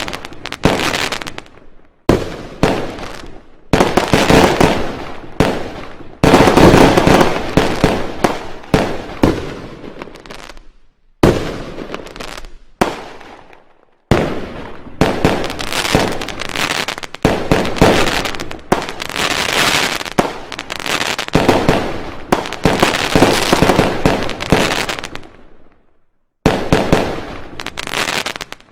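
Fireworks going off: rapid volleys of bangs and crackling firecrackers, one cluster after another, each fading before the next starts abruptly.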